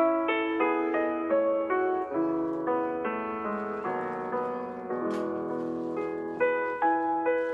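Background piano music: a slow melody of single notes over sustained lower notes, starting abruptly.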